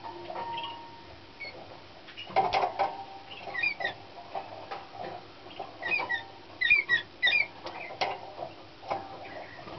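Young Slavujar song canary giving short, squeaky chirped notes in two brief runs, in the middle and a little later. Light taps and knocks sound between the runs as the bird hops on its perches and cage.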